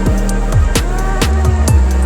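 Electronic background music with a steady drum beat and a sustained bass line.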